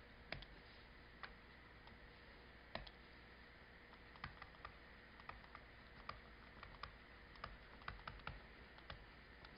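Near silence with faint, irregular small clicks and taps, coming closer together in the second half.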